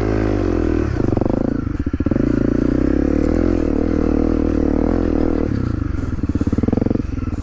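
Honda CRF250L's 250 cc single-cylinder four-stroke engine running under way, its revs rising and falling; after about five and a half seconds it drops to a lower, slower pulsing note.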